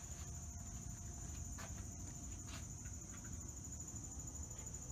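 Insects trilling in a steady, high-pitched, unbroken drone over a low background rumble, with a couple of faint clicks.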